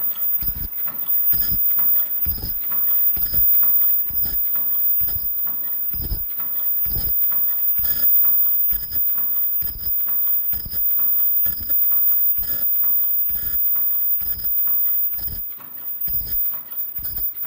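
Automatic disposable face mask making machine running, knocking in a steady cycle about twice a second, each knock with a short high click.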